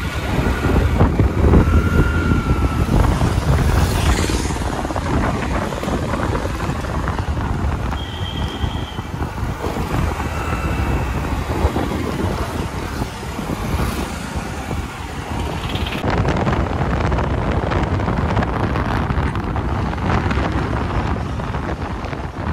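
Wind buffeting the microphone on a moving two-wheeler, with its engine and the passing traffic running underneath. A few brief high tones come through now and then.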